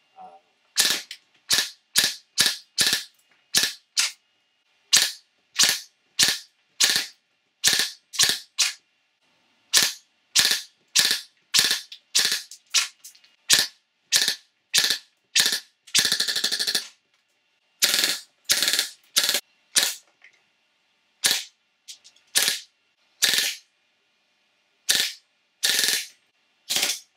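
3D-printed FGC-6FA open-bolt gas blowback airsoft gun firing: a long series of sharp shots, mostly in short strings of about two to three a second with brief pauses. About halfway through there is a fast full-auto burst of roughly a second. The gun is cycling with long-cycle and short-cycle bolt and main spring setups.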